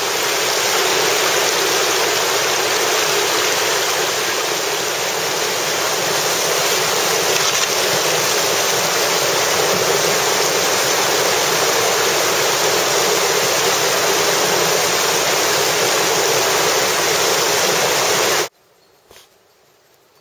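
River water rushing through a rapid: a loud, steady hiss of whitewater that cuts off suddenly near the end, leaving near silence.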